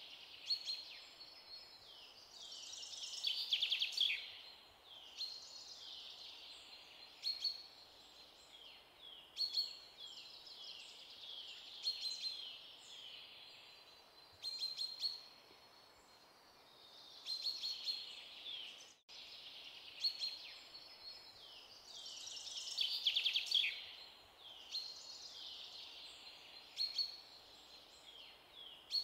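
Birds chirping in short high calls and trills every second or two over a faint hiss. The sound cuts out briefly about 19 seconds in, then the same run of calls starts over, as a looped birdsong ambience track.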